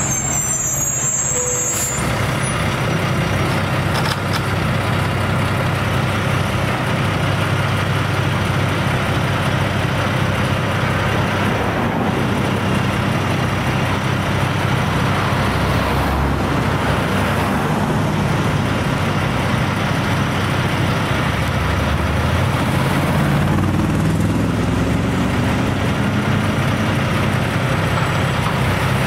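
A large engine running steadily, its pitch shifting up and down a little about two-thirds of the way through.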